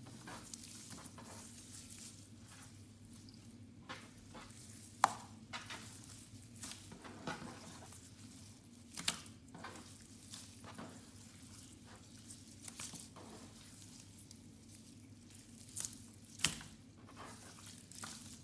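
No-glue water slime being squished and worked, giving scattered wet crackles and sharp little pops, the loudest about five seconds in and near the end.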